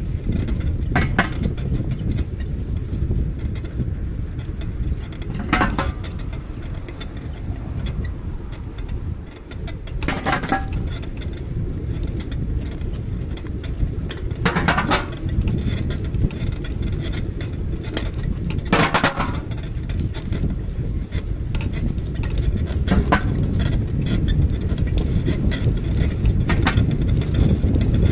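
Wind buffeting the microphone and road rumble from riding along a path, with a brief rattle or knock about every four seconds.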